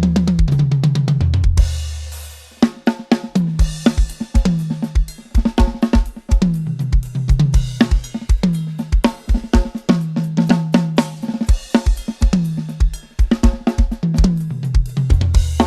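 A budget drum kit played, multitrack-recorded and mixed: a fill down the toms rings out about two seconds in. It then settles into a steady groove of kick and snare under busy hi-hat and cymbals.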